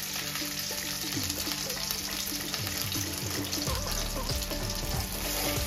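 Hot oil sizzling steadily in a frying pan around shallow-fried masala pomfret as the pieces are lifted out, with soft background music.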